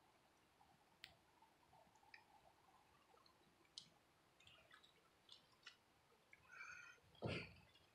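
Near silence, with faint scattered clicks and a short muffled thump near the end.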